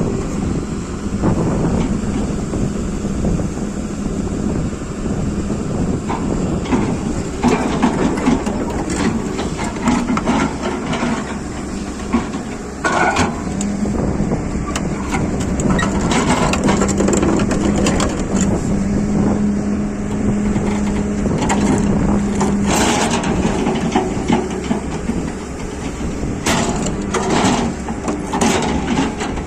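Excavator running, its engine giving a steady hum under repeated crunching and clanking knocks.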